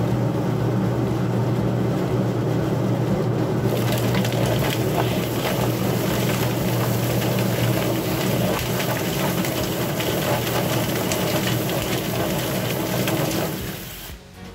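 Tub-style chicken plucker running. Its electric motor hums steadily while scalded broiler carcasses tumble and slap against the rubber plucking fingers on the spinning plate. A garden-hose spray hisses into the drum from about four seconds in, and the plucker stops just before the end.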